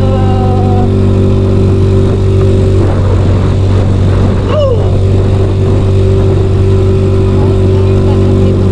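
Yamaha Mio Sporty scooter's single-cylinder engine running steadily on the move. The engine note breaks up and turns rougher about three seconds in, then settles back to a steady note about two seconds later.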